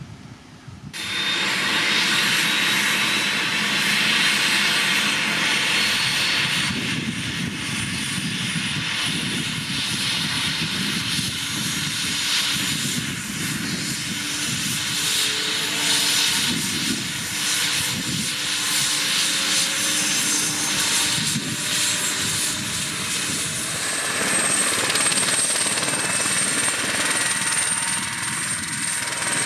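Airbus H145 helicopter turning its rotor on the ground: steady turbine whine and rotor noise, starting suddenly about a second in.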